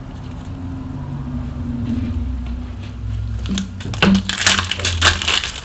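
Trading card pack wrapper crackling and crinkling as it is torn open and handled, a rapid run of crackles starting a little past halfway through, over a low steady hum.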